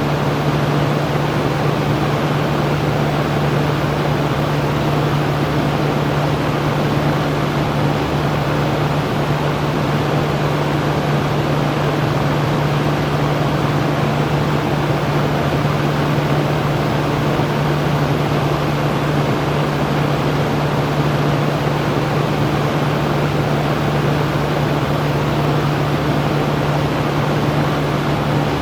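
Electric fan running steadily: an even rush of moving air with a constant low hum underneath.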